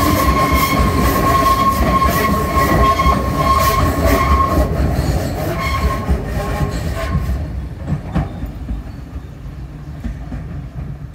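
Enoden 1000-series electric train with nose-suspended traction motors running on curved track: a steady high squeal over a low rumble and repeated clicks of wheels over rail joints. The sound drops sharply after about seven seconds and stays quieter, with one more click a second later.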